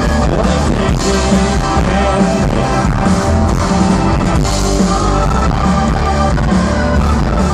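Live rock band playing loud and steady, with electric guitars, bass, drums and organ together.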